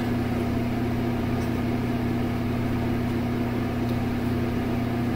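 A steady low hum with a constant pitch, unchanging throughout, over a faint even hiss.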